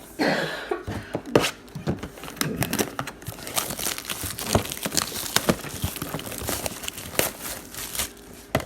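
Trading-card pack wrappers crinkling and tearing as packs are opened and handled: a dense run of crackles and rustles.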